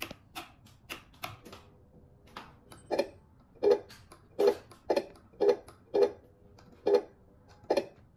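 The sound system of a 1/14 RC tractor truck playing a series of clicks: faint and quick at first, then from about three seconds in louder, even ticks at a bit under one and a half a second.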